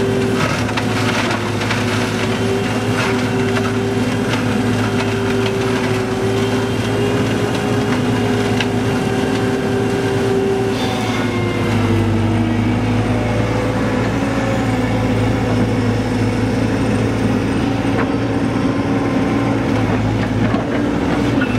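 Rolmex hydraulic mulching head on an excavator running steadily, its rotor shredding brush and grass: a continuous whine whose pitch dips briefly about halfway through, with a few sharp ticks.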